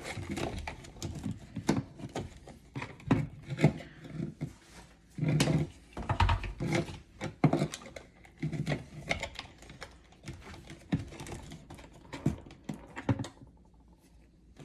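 Irregular clicks, knocks and scrapes of stiff electrical wires and a plastic smart-switch unit being handled and pushed into a wall switch box. The clicking thins out near the end.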